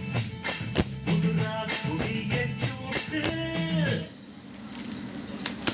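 Song with a fast, even shaker-and-tambourine beat and a melody, played through a 7297 stereo amplifier, cutting off suddenly about four seconds in. A quieter low steady hum and hiss follow, with a faint click near the end.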